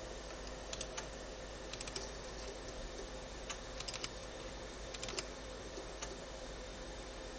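Computer keyboard keys clicking in irregular little clusters over the steady hum of the running computer.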